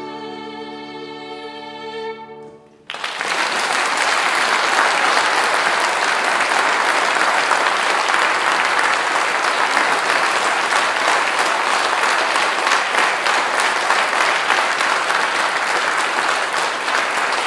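Violin and piano holding a final sustained note that dies away about two and a half seconds in; then audience applause breaks out suddenly and continues steadily.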